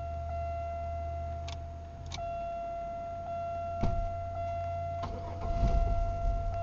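1997 Chevy Malibu engine starting and running briefly, under a steady high-pitched electronic tone, with a few clicks and a louder stretch near the end. The car keeps starting for only a few seconds and then quits, which the owner suspects is the anti-theft system cutting it off.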